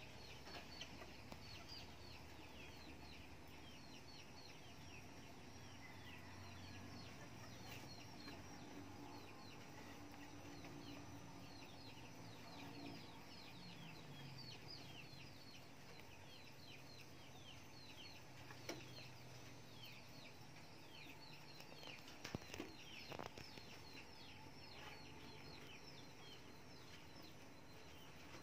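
Faint, dense chirping of birds: many short, high, falling chirps following one another, over a low hum, with a few sharp clicks about two-thirds of the way in.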